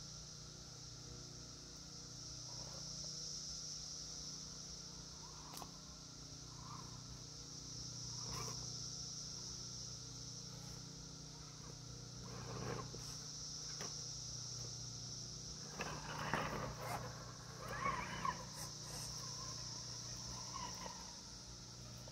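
Steady high-pitched insect chorus that swells and fades. Over it, an Element RC Gatekeeper rock crawler knocks and scrapes now and then as its tyres and chassis climb over rocks and roots, with a cluster of louder knocks about three quarters of the way through.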